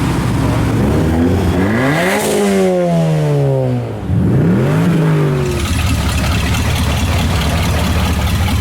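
A car engine revving hard twice. Each time the pitch climbs quickly and then slides back down, the first rev longer than the second, over a steady low rumble of idling and passing traffic.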